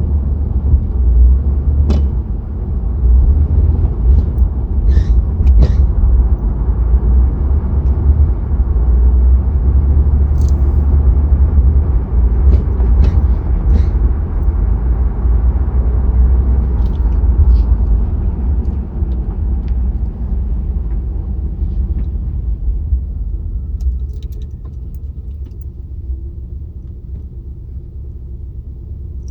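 A Cadillac's engine running with a steady, deep low rumble and a few light clicks, easing off somewhat over the last several seconds.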